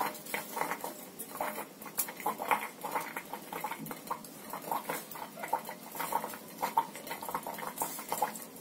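Beetroot juice simmering down in a steel bowl on a low gas flame, with soft, irregular popping and plopping of bubbles as it thickens.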